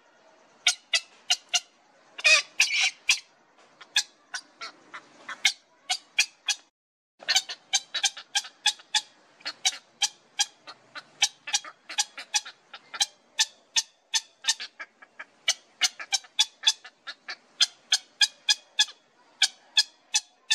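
Heron nestlings calling: a rapid series of short, sharp squawks, about three or four a second, with a louder, harsher cluster about two seconds in and a brief pause near the middle. These are the chicks' begging calls as food is held out to them.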